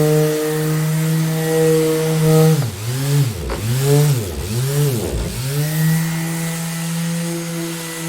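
Electric orbital sander running at a steady pitch; in the middle its pitch sags sharply and recovers about three times, then it runs steadily again.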